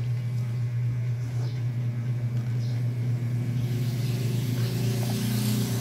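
A steady low hum throughout, with a rushing noise that swells up about four seconds in and lasts to the end.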